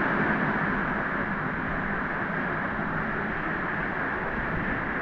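Steady rush of flowing river water, an even noise that holds at one level throughout.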